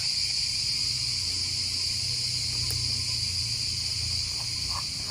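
Steady high-pitched hiss with a low hum underneath, and a couple of faint clicks.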